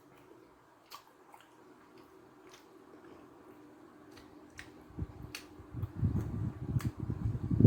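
Close-miked mouth sounds of eating soft durian flesh: scattered wet lip smacks and clicks, then louder squishy chewing from about five seconds in.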